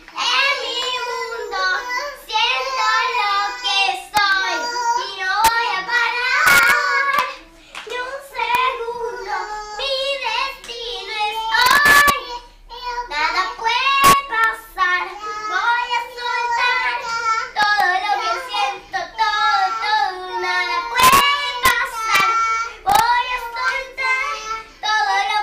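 A young girl singing a song, the melody running almost without a break, with a few sharp knocks along the way.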